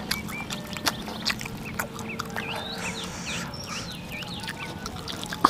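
Close-miked mouth sounds of eating spicy tofu and rice: wet chewing, lip smacking and sharp clicks, mixed with many short squeaky chirps, over a faint steady hum.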